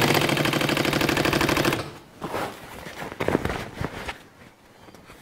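Walking-foot sewing machine running a fast, even burst of stitches through fabric, stopping about two seconds in. After that comes quieter handling of the fabric, with a few clicks and rustles.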